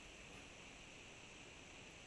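Near silence: a faint, steady hiss of an open microphone line.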